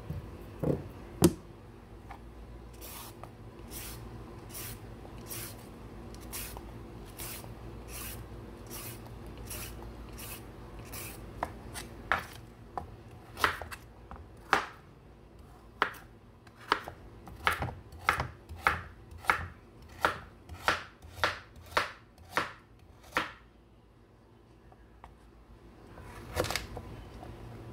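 Chef's knife chopping carrots into rounds on a wooden cutting board: a run of sharp knocks, soft at first, then louder at about two a second, stopping a few seconds before the end, with one more cut near the end.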